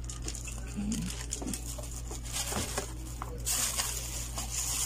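Clear plastic packaging bags crinkling and rustling as wrapped microphone parts are handled and pulled out of the box, with scattered crackles at first and a louder, denser crinkle over the last second or so. A steady low hum runs underneath.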